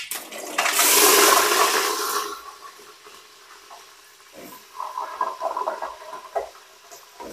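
Raw chicken pieces going into hot oil in an aluminium pot: a loud sizzle that swells about half a second in and dies down after about two seconds, followed by quieter sizzling and small knocks as the pieces are added and stirred.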